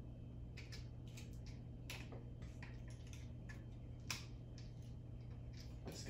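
Faint, scattered small metal clicks and ticks of a hand tool working a screw on top of a Rancilio coffee grinder, with one sharper click about four seconds in, over a steady low hum.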